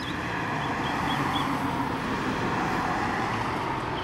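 A car passing on the road, its tyre and engine noise swelling about a second in and then slowly fading. Faint short bird chirps at the start and again near the end.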